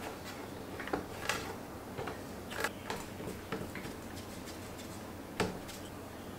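Hands working pretzel dough on a wooden tabletop, kneading and then rolling it into strips: soft, scattered knocks and taps of hands and dough on the wood, with one sharper knock about five seconds in.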